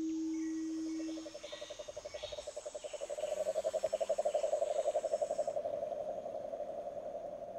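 Frog call: a fast pulsing trill that swells over a few seconds and then slowly fades, with a thin high insect buzz over part of it.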